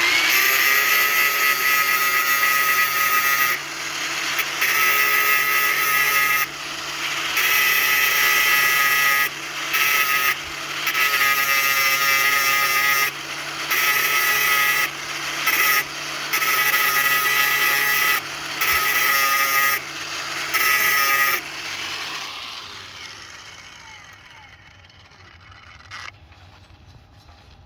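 An electric power tool's motor whining at full speed, switched off and on again and again in runs of one to three seconds. It stops for good about 21 seconds in and the sound dies away.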